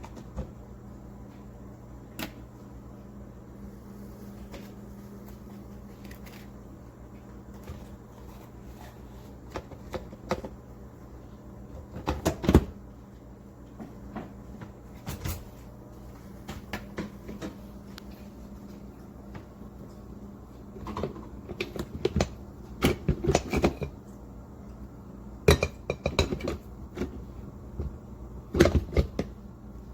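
Scattered clicks and knocks of kitchen items being handled, coming in short clusters, over a steady low hum.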